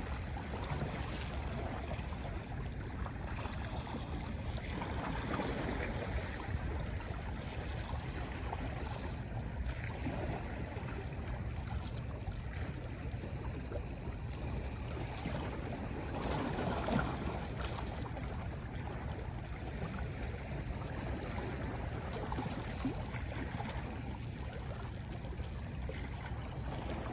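Sea waves washing against the shore in a steady wash of water noise that swells a few times, most strongly about two-thirds of the way in, over a continuous low rumble.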